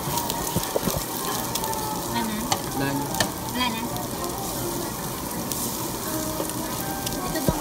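Meat sizzling steadily on a hot barbecue grill, with a few sharp clicks scattered through.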